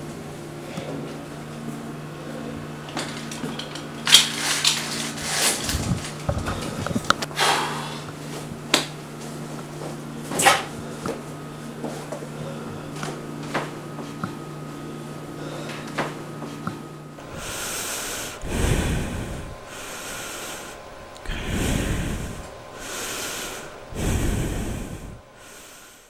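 Clicks, knocks and rustles of someone handling things in a room over a steady electrical hum. The hum stops partway through, and a run of slow swelling whooshes follows, about one every two seconds, before the sound cuts off suddenly.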